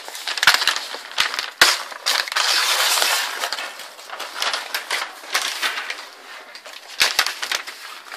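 Packaging being handled while unboxing an airsoft rifle: crinkling and rustling that is loudest a couple of seconds in, with several sharp knocks early on and two more near the end.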